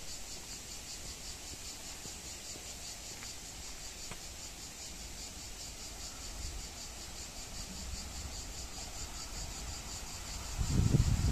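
Cicadas chirring in a steady, evenly pulsing, high-pitched chorus. Near the end an approaching train's low rumble grows louder beneath it.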